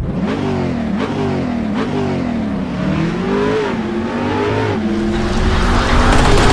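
Lotus Exige Sport 380's supercharged V6 engine revving repeatedly, its pitch climbing and dropping about once a second. Near the end it holds steadier and grows louder.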